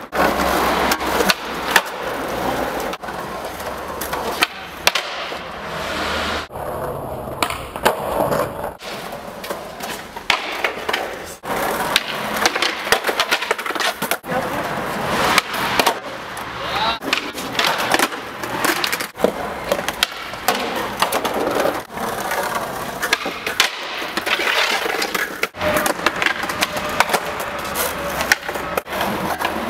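Skateboards popping and landing again and again on stone paving during flatground tricks, sharp wooden knocks with wheels rolling between them.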